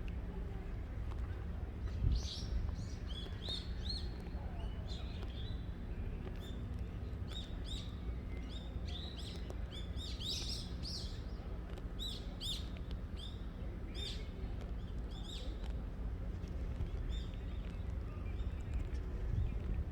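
Small birds chirping in quick, short, high calls, many in a row, fading out near the end, over a steady low background rumble.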